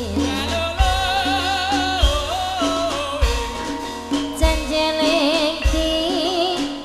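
Javanese gamelan music: a wavering melody line held on long notes over deep strokes that come regularly, a little over a second apart.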